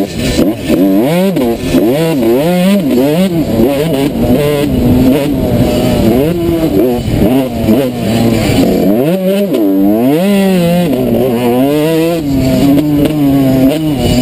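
A 2003 Suzuki RM125 two-stroke motocross engine under hard riding, its revs climbing and falling again and again with throttle and gear changes. About nine seconds in the revs fall away briefly, then climb again in a sharp rising rev.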